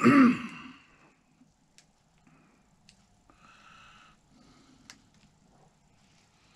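A brief vocal sound from a man at the start, then soft rustling of printed paper sheets being handled, with a few small clicks.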